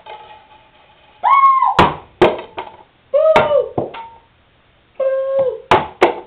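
Three short high-pitched calls that rise and fall in pitch, each followed by one or two sharp thunks, like something small and hard striking a hard surface.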